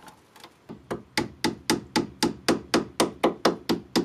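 Light hammer taps on a metal tool held against a rusted brake-hose retaining clip on a Toyota MR2's strut bracket, driving the seized clip out. The taps start faintly about three quarters of a second in, then settle into a steady, even rhythm of about four a second.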